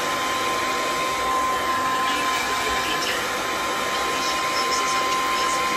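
Handheld hair dryer running steadily, blowing hot air through hair: a constant rush of air with a thin steady whine.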